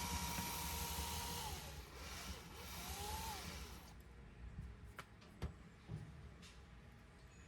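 Small power-tool motor whirring, its whine falling away as it winds down about a second and a half in, then a shorter spin-up and wind-down. A few light clicks follow near the end.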